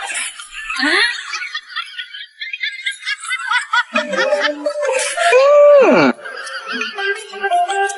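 Laughter over background music, with a strong held tone about five seconds in that slides steeply down in pitch.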